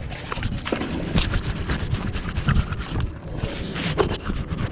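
Irregular rubbing and scraping with many scattered sharp clicks, from magnet-fishing rope and gear being handled.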